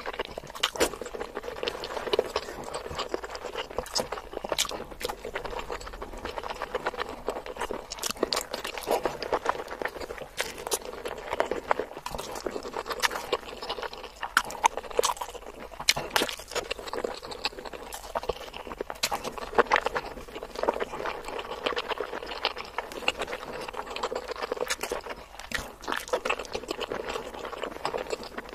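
Close-miked eating of boiled masala eggs: wet chewing and mouth sounds, with many small clicks and smacks, as soft egg and sauce are bitten and chewed.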